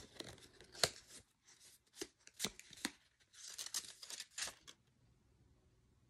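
Folded paper leaflet being unfolded and handled: several sharp paper crackles over the first three seconds, then a stretch of rustling.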